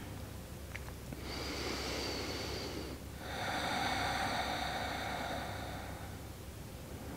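A woman's slow, deep breathing picked up close on a clip-on wireless microphone: two long breaths, the first about two seconds and the second about three seconds.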